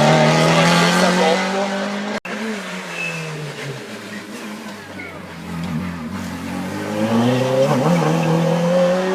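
Race car engine at high revs, loud and steady for about two seconds. The note then drops in pitch and fades, and rises again from about seven seconds in as the car accelerates.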